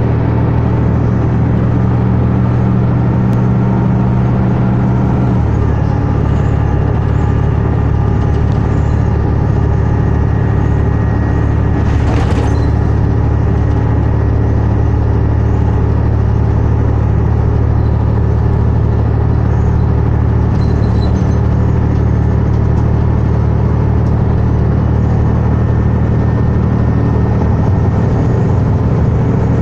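Cummins ISL 9.8 diesel engine of a New Flyer D60LFR articulated bus running steadily at speed, heard from inside the cabin with road and tyre noise. The engine note changes about five seconds in, and a brief sharp noise cuts through about twelve seconds in.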